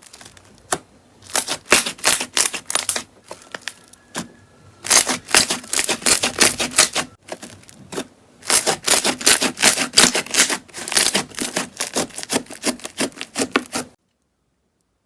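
Slime being squeezed and pressed by hand, giving rapid crackling clicks in bursts of a second or two, as in crunchy or clicky slime. It cuts off suddenly about a second before the end.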